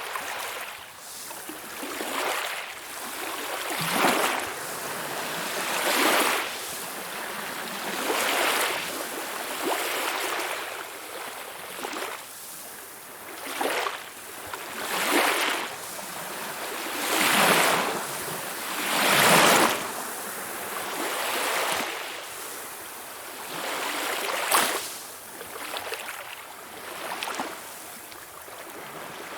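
Small waves splashing and lapping against a shore in irregular surges every second or two, the biggest splashes a few seconds apart.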